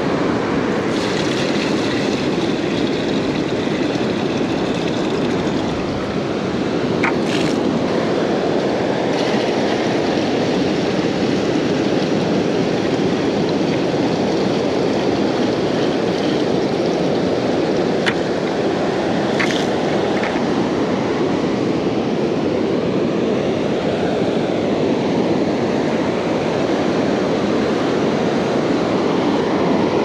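Steady rush of ocean surf breaking on a sandy beach, with a few brief knocks from plastic buckets being handled.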